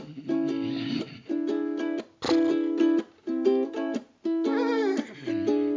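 Instrumental passage of a song: ukulele strumming chords in short bursts with brief gaps between them. A short wavering, sliding pitched sound rides over it about five seconds in.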